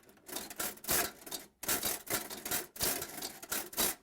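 Brass multiplication mechanism of an 1895 Millionaire mechanical calculator being worked by hand as it multiplies by 2: its levers engage the brass multiplication table in a series of short scraping, clacking mechanical strokes, about two a second.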